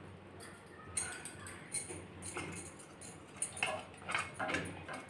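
Metal spoon clinking and scraping against a steel bowl as a thick mixture is scraped out into a steel pan, in a few light clinks that come closer together near the end.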